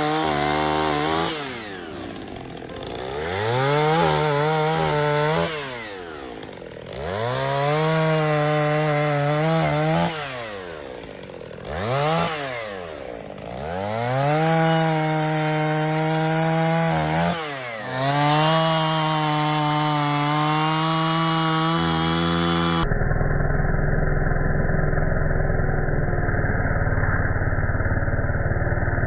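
Chainsaw bucking a fallen black walnut trunk: it revs up, holds steady at full throttle through each cut, and drops back toward idle, about five times over. Near the end the sound turns abruptly duller and muffled while it keeps running.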